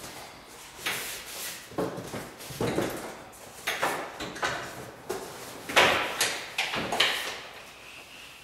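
Clear plastic sheeting crackling and rustling in a run of sharp bursts, roughly one a second, as it is gathered and rolled up by hand, the loudest near the end.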